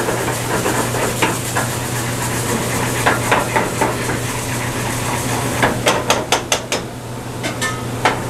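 Metal tongs stirring and scraping through a pesto cream sauce in a stainless sauté pan on a gas burner, with sizzling under it and a steady low hum. The tongs clatter against the pan in a quick run of sharp metallic clicks about six seconds in, and again near the end.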